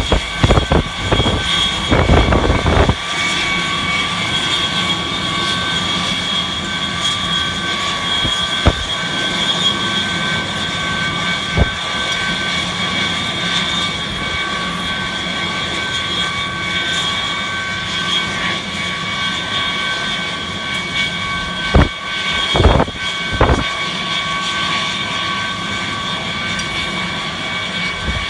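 Rail de-icing machine running steadily, with a constant high-pitched whine from its motor over the rumble. Wind gusts buffet the microphone in the first few seconds and again about two-thirds of the way through.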